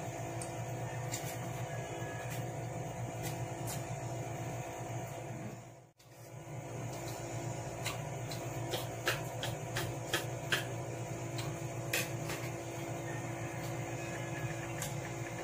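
Eating sounds: a person slurping and chewing spicy instant noodles, with sharp clicks of a metal fork on the plate, over a steady background hum. The sound drops out briefly near the middle.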